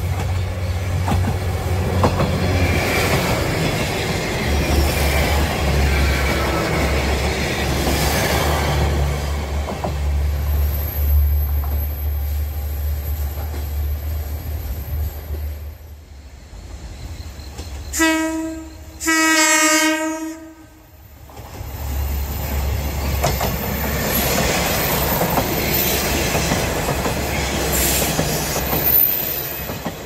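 KiHa 47 diesel railcar running along the track, its engine drone mixed with wheel noise on the rails. Past the middle a train horn sounds a short toot and then a longer blast, and the railcar's drone then builds again as it draws near.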